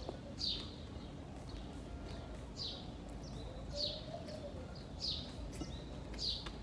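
A songbird repeating a short, high, falling chirp about once a second, with a lower arching call recurring underneath now and then.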